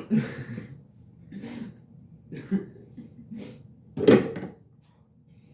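A man forcing out a string of short throaty sounds while trying to burp, about five in a row with the loudest about four seconds in.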